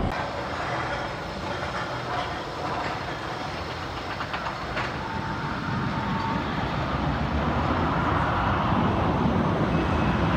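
Steel looping roller coaster train (Arrow Dynamics' Anaconda) running on its track, a steady rumble that grows louder over the last few seconds.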